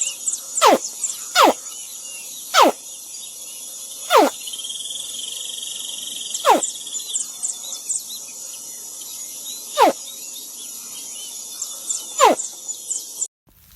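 A young animal giving short, steeply falling whistle-like calls, about eight over the stretch at uneven gaps of one to three seconds, over a steady background of crickets and chirping birds.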